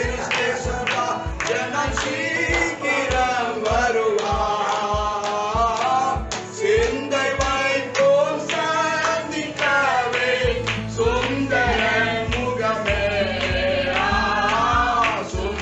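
Music with singing, in the manner of Christian gospel music, over a steady low beat; sustained bass notes come in about two-thirds of the way through.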